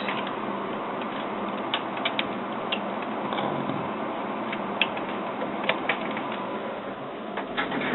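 Scattered light clicks and taps, about a dozen, over a steady background hiss: small plastic parts being handled.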